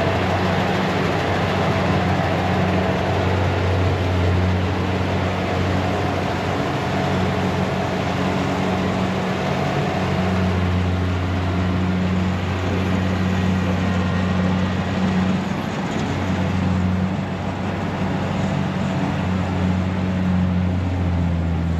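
Rice combine harvester running steadily with a constant low engine hum.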